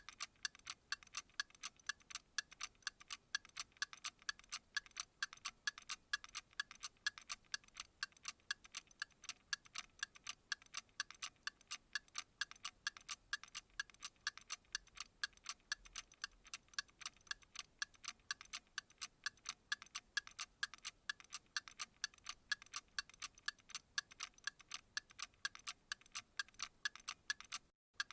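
Clock ticking steadily, several even ticks a second, with a brief cut-out near the end.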